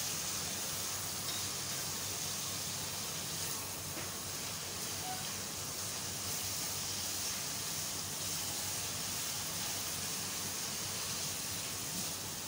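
Chopped tomatoes and coarsely crushed whole spices sizzling steadily in hot oil in a frying pan.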